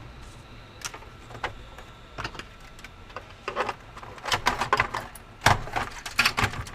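Irregular sharp clicks and light knocks of small hard parts and tools being handled, coming thicker and louder in the second half.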